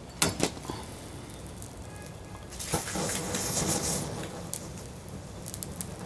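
Two sharp knocks as the lit Zippo lighter is thrown. About two and a half seconds in comes a rush of flame as a fabric banner catches fire, settling into soft crackling.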